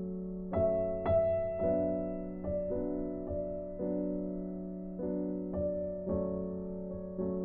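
Background music: slow, gentle keyboard chords struck about once or twice a second over a held low note.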